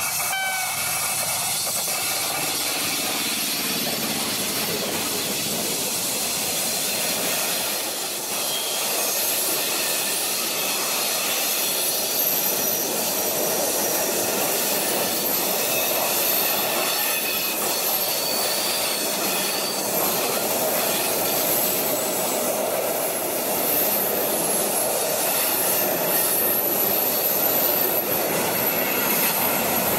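Locomotive-hauled passenger train passing close by on a curve, its coaches rolling past with a steady, continuous noise of wheels on rails. Thin high-pitched wheel squeal from the curve comes in mostly in the second half.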